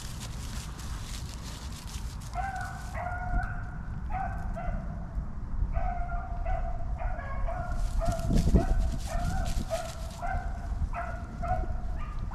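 A pack of rabbit-hunting dogs baying as they run a rabbit's trail: a string of short bays from about two seconds in, coming every half second or so, over a steady low rumble.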